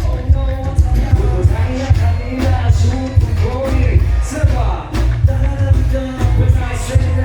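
Loud music with a singing voice over a heavy, pulsing bass beat.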